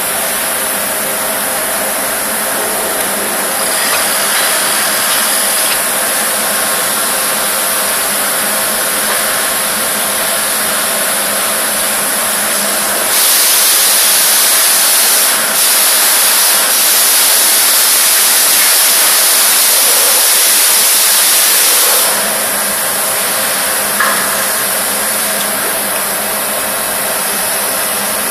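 Aluminium die-casting cell running, a steady machinery hum under a constant hiss. About thirteen seconds in a loud hiss starts, breaks off briefly twice and stops about nine seconds later.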